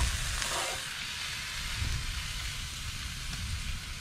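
Deer steaks sizzling in a frying pan on a wood-burning tent stove: a steady frying hiss.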